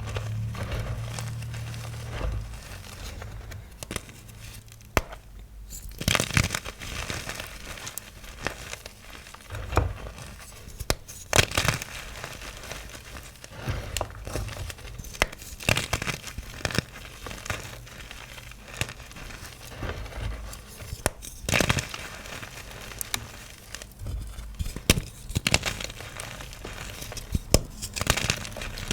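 Small blocks of yellow-dyed gym chalk (magnesium carbonate) being crushed, crunching and crumbling in irregular bursts with sharp crackly snaps.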